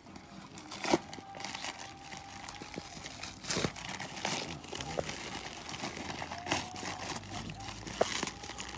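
Parcel packaging being handled and unwrapped: crinkling and tearing, broken by scattered sharp clicks and knocks.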